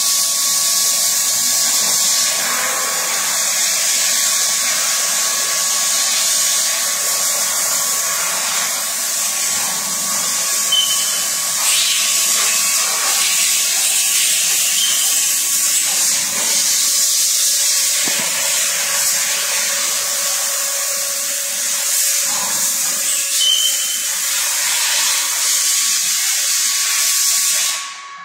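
Loud, steady hiss that starts abruptly and cuts off suddenly near the end, over a faint steady hum.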